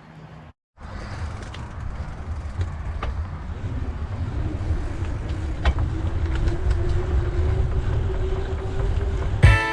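Wind buffeting the microphone over the low rumble of a mountain bike rolling along a paved trail, with a faint hum that slowly rises in pitch as the bike gathers speed, and a few light clicks. Guitar music starts near the end.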